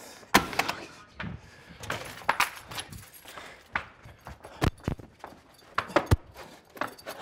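Irregular clicks, knocks and light rattles of things being handled and someone moving about, with no steady sound underneath.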